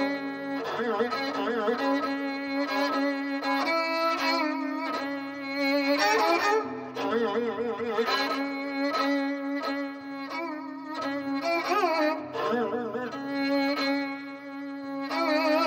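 Ajaeng, the Korean bowed zither, playing a slow melody: long bowed notes with wide, wavering vibrato and occasional sliding pitches over a held lower note, with brief breaks between phrases.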